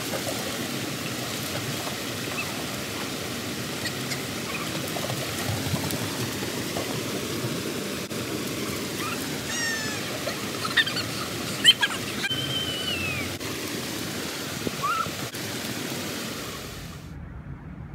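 Steady rush of water falling from the pool's wall fountains. A few short high chirps come about halfway through, with one sharp click among them.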